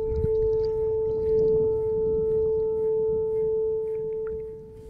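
A single steady, held tone with fainter overtones above it, sustained and then fading out about four and a half seconds in, over low noise.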